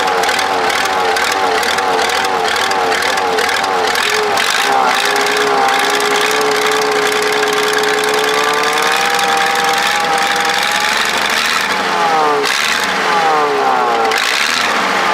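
Supercharged Cummins diesel engine running, its speed wavering quickly at first. It is then brought up slowly and held, and near the end is revved up and down several times.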